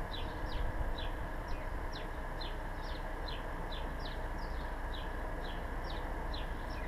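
A small bird chirping over and over, about three short high chirps a second, over a steady low rumble.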